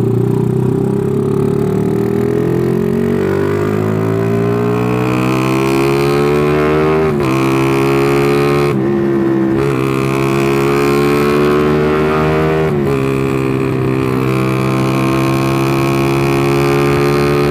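Carbureted motorcycle engine accelerating hard through the gears: its pitch climbs steadily, drops at gear changes about seven and thirteen seconds in, then climbs again. It runs without coughing, and the rider finds the top end now pulls well after a loose ignition coil wire was fixed and the carburetor retuned.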